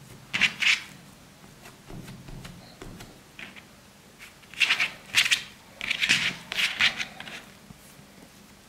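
Hands pressing and folding soft bread dough on a silicone pastry mat: short rubbing, swishing sounds, a pair about half a second in and a cluster of them from about four and a half to seven seconds in.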